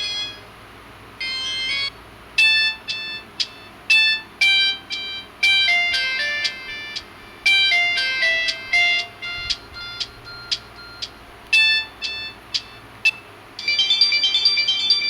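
Samsung GT-E1150 mobile phone playing its ringtones one after another. A tune breaks off at the start and a short snippet of tones follows about a second in. Then comes a melody of separate notes that each ring and die away, and a different, busier tune begins near the end.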